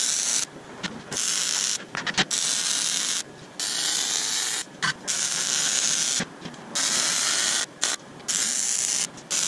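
A hissing, rattling shop tool running in repeated bursts of about a second each, stopping briefly between them.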